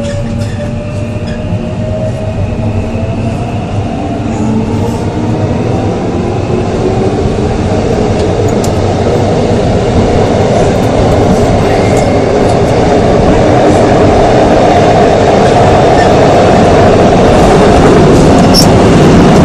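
Korail Class 3000 electric multiple unit heard from inside the car: the Mitsubishi GTO inverter and traction motors whine, rising slowly in pitch over the first few seconds as the train picks up speed. The rolling noise of the wheels on the rails grows steadily louder.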